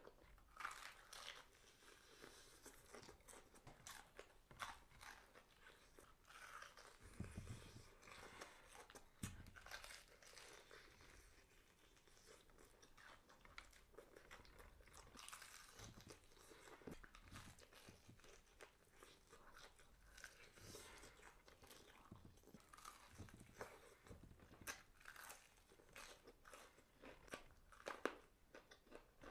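A person chewing and biting food close to the microphone: faint, irregular crunches and mouth clicks.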